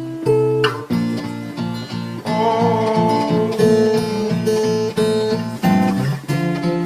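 Instrumental music: acoustic guitar strumming chords in a steady rhythm, without singing.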